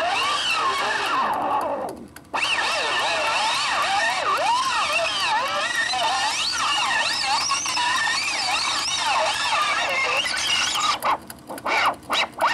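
1963 Geloso G257 valve reel-to-reel tape recorder sounding a tape as it winds fast past the head. The recording comes out sped up as a high, warbling squeal of quickly sliding pitches, with a brief dip about two seconds in and choppy stuttering fragments near the end.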